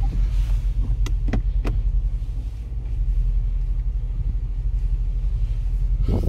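Steady low rumble inside the cabin of a Range Rover Sport running at low speed off-road, with a few sharp clicks about a second in.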